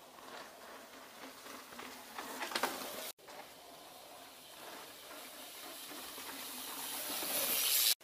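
Mountain bike tyres rolling on a dry dirt trail as a rider comes closer, a hiss that grows steadily louder over the last few seconds. The sound drops out for an instant about three seconds in.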